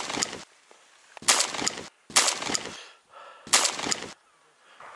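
Shotgun blasts from a volley at incoming geese: the tail of one shot right at the start, then three more shots roughly a second apart, each followed by a short echo.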